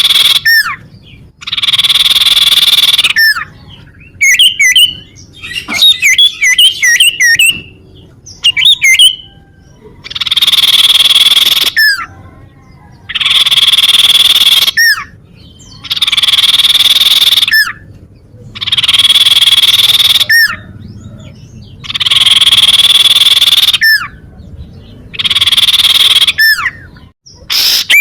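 Common iora (cipow) calling: long buzzy trills of about one and a half to two seconds, repeated roughly every three seconds, with quick curving whistled chirps in between.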